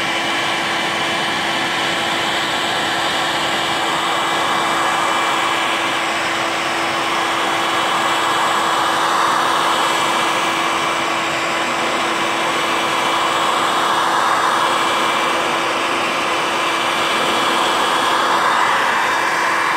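Electric heat gun running steadily, its fan blowing hot air over faded plastic trim: a constant whoosh with a steady hum tone, swelling slightly a few times.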